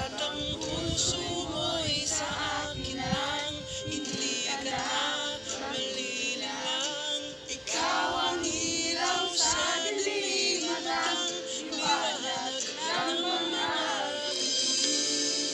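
A song: voices singing a melody over a steady accompaniment, with heavy bass for the first few seconds before it drops away.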